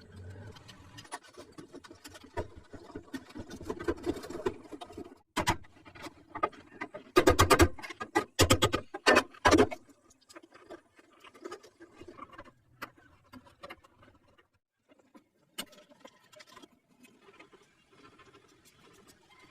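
Irregular clicks and knocks of hand tools at work, with a cluster of loud sharp knocks about seven to nine and a half seconds in.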